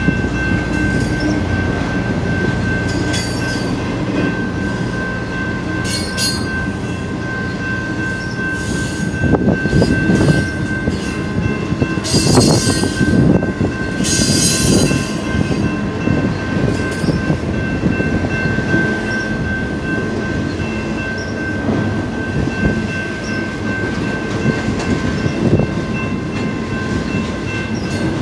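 Intermodal freight train's cars rolling past at speed: a steady rumble and clatter of steel wheels on the rails, with several short bursts of high-pitched wheel squeal, the loudest about twelve to fifteen seconds in. Under it, the grade-crossing bell rings steadily.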